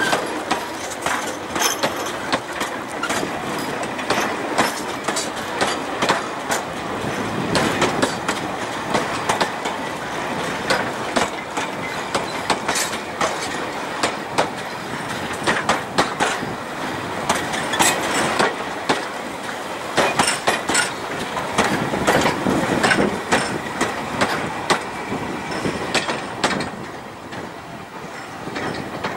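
Narrow-gauge freight wagons rolling slowly past, wheels clacking and rattling over the rails in a dense, irregular run of clicks and knocks; it fades near the end as the last wagon goes by.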